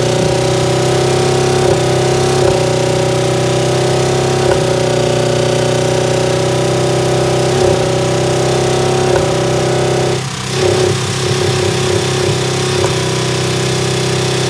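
Buick LeSabre's 3.8-litre V6 running at a steady held speed with yogurt drink, energy drink and dirt in its crankcase instead of oil, with a sharp knock every second or two. About ten seconds in the note dips briefly and a fast rattling knock sets in: an engine being run to destruction without proper lubrication.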